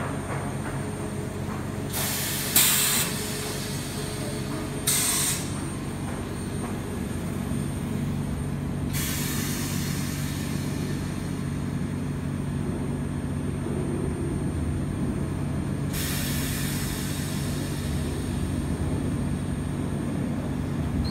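Oxygen-fed ozone generator running with a steady low hum, broken by hisses of gas: two short ones about two and five seconds in, and longer hisses starting about nine and sixteen seconds in that slowly fade.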